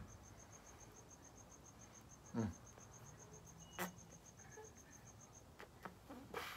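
A cricket chirping in a fast, even, high-pitched pulse that stops about five seconds in. Over it come a short low sound from the man about halfway, a sharp click a little later, and a breath of cigar smoke blown out near the end.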